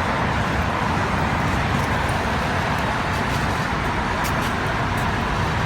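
Steady, even rushing noise of road traffic, with no distinct events.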